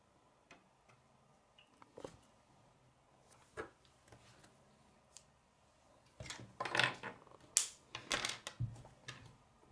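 Plastic K'nex pieces being handled on a wooden floor: a few separate clicks and taps at first, then a quick run of clicking and clattering for the last few seconds as pieces are picked up and put down.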